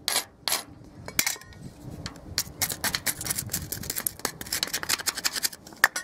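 A wire brush scrubbed across rusty wrought iron in two quick strokes, then from about a second in a metal scraper scraping loose, flaking rust off the iron rail in rapid short strokes.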